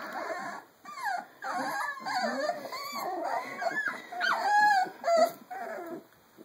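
A young puppy whining and yipping, a string of short cries that rise and fall in pitch, loudest and highest about four and a half seconds in.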